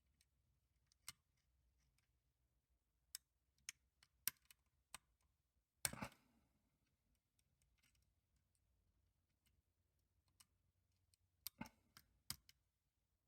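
Faint, scattered small metallic clicks of a lock pick and tension wrench working the pins of Crease's 'Hink Honk' custom lock, with a longer, louder rattle about six seconds in and a quick run of clicks near the end.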